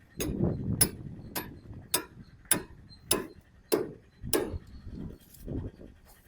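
A row of sharp, evenly spaced taps, about eight of them a little under two a second, each with a dull low knock under it, stopping about two-thirds of the way through.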